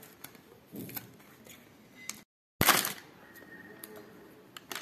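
Crinkling and rustling of a foil tea bag and its cardboard box being handled and opened, with scattered sharp clicks. The sound cuts out completely for a moment just after two seconds in, then comes back with a sudden loud crackle of the packaging.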